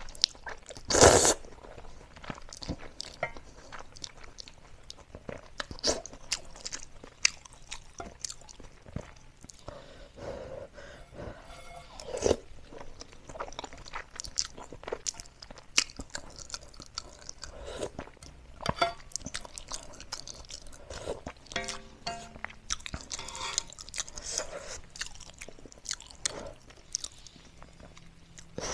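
A person eating spicy Korean instant noodles close to the microphone: a loud slurp of noodles about a second in, then chewing, sips of broth from a spoon and small clicks of the spoon and chopsticks against the metal pan.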